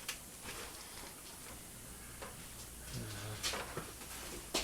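Faint clicks and light knocks of handling against low background noise.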